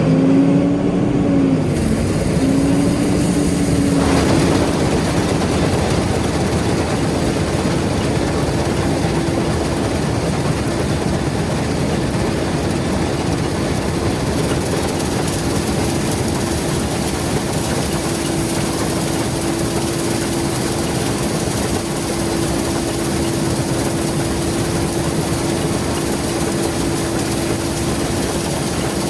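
Combine harvester running while harvesting soybeans: steady engine and threshing machinery noise with a whine that climbs and wavers in the first few seconds, then holds at one pitch.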